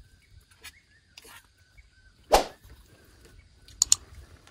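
A single sharp knock of a metal spoon against a cooking pan about two seconds in, then a quick pair of sharp clicks near the end, over a faint quiet background.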